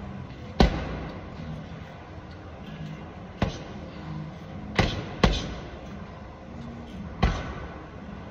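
Gloved punches landing on a hanging heavy bag: five sharp thuds at irregular intervals, two of them close together about five seconds in, each echoing in a large hall.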